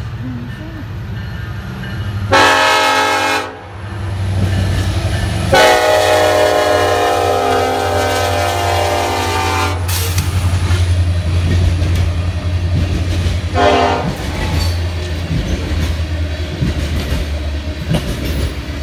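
BNSF diesel freight locomotive's air horn sounding three blasts as the train passes: a short one, a long one of about four seconds, and a brief one. Under the horn runs the steady low rumble and clickety-clack of the freight cars rolling by.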